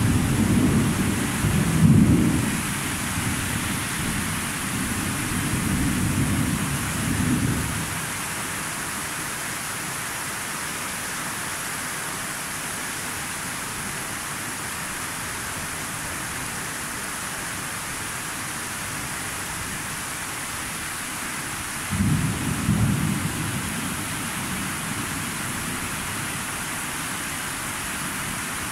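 Thunder rumbling over a steady hiss of rain. One long rumble dies away about eight seconds in, and a second, shorter rumble comes a little after twenty seconds.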